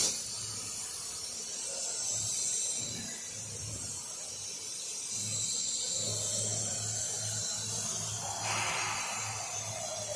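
Acctek 2030C ATC CNC router pressing crease lines into cardboard with a pressure wheel tool: a steady machine hiss, with a low motor hum that comes and goes as the head moves. A louder rushing noise starts near the end.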